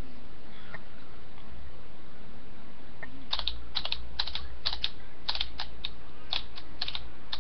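Typing on a computer keyboard: a dozen or so irregular key clicks starting about three seconds in, over a steady hiss.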